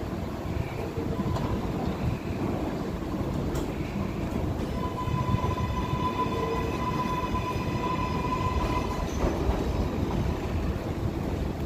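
New York City subway train running through a tunnel: a steady rumble of wheels on the rails, with a high steady whine that sets in about five seconds in and fades about four seconds later.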